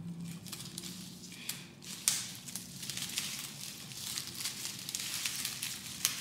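A bundle of rose stems and leaves rustling and crackling as they are handled, with a sharp crack about two seconds in.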